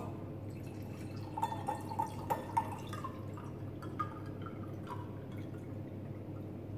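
Orange juice poured from a glass jug into a wine glass over ice: a quiet trickling pour with a few short plinks and ticks in the first five seconds.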